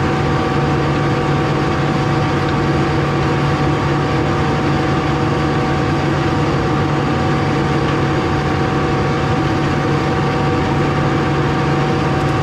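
Tractor engine running steadily at a constant speed, with no change in pitch or loudness.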